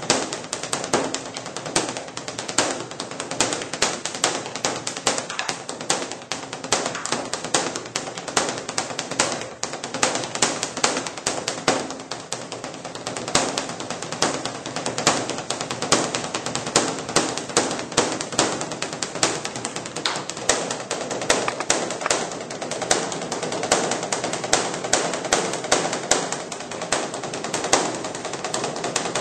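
Korean Buddhist temple drum (beopgo) beaten by monks with sticks in a fast, continuous rolling rhythm of many strikes a second.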